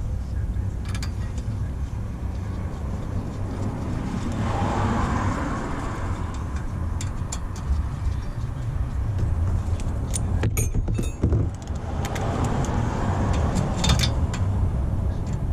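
Hand tools and metal brake hardware clinking and clicking while caliper bolts are tightened, with a cluster of sharp clicks about ten seconds in, over a steady low rumble.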